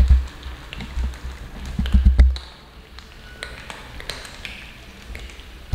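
Cats eating dry kibble from a metal tray: crunching, with pieces clicking against the metal. There are dull low thumps near the start and about two seconds in. After that it is quieter, with scattered clicks.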